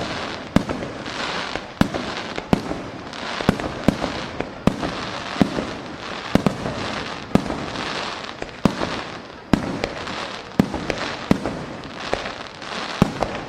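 Aerial fireworks shells bursting in quick succession during a display's finale barrage: sharp booms every half second to a second, with a steady crackle of bursting stars between them.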